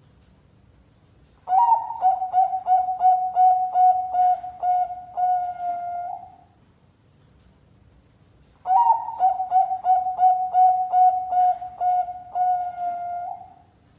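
Perkutut Bangkok (a Thai-bred zebra dove) cooing. It gives two phrases, each a quick run of about ten short coos that ends in a long held note.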